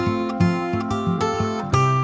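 Background music: strummed acoustic guitar with chords changing a few times.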